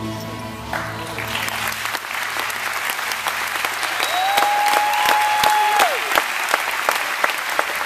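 Audience applauding and cheering as the act's music fades out over the first couple of seconds. A single long held cheer rises above the clapping about four seconds in and lasts nearly two seconds.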